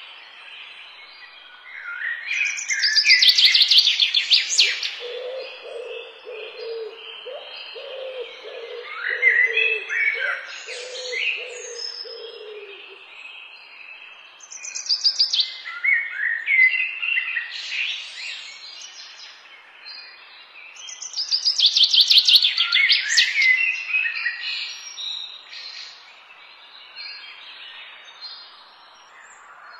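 Birds singing: loud trilled, chirping song phrases that come back about every six or seven seconds. A lower, rapid run of repeated notes sounds for several seconds in the first half.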